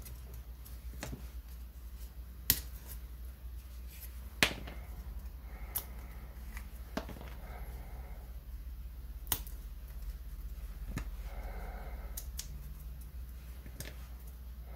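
Sharp clicks and snaps, about seven at irregular intervals, as pieces are pressed out of a superhero-builder punch-out sheet. A steady low hum runs underneath.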